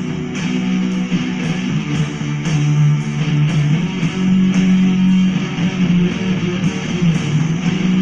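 Guitar music playing through a pair of small Philips SPA1260/12 2.0 desktop speakers, picked up by a phone's microphone. The sound is heavy in the upper bass and thin in the deep bass, as these speakers lack low bass.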